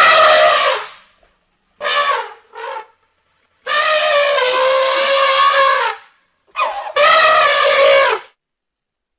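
Woolly mammoth sound effect: a series of loud, elephant-like trumpeting calls. One call fades out in the first second, two short ones follow about two seconds in, then a long call of about two seconds, and a last call near the end.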